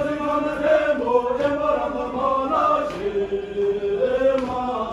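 Voices chanting in unison, a Buddhist devotional chant sung in long held notes that step up and down in pitch.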